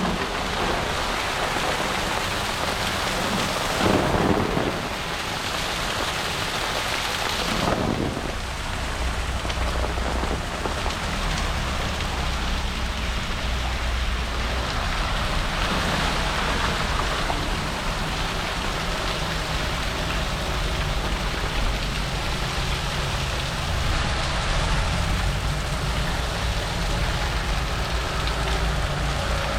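Heavy rain pouring steadily during a thunderstorm, with two brief swells in the first eight seconds. A low steady rumble comes in underneath about eight seconds in.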